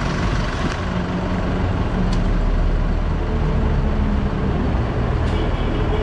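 A diesel truck engine idling with a steady low rumble. Two faint clicks come about two and five seconds in.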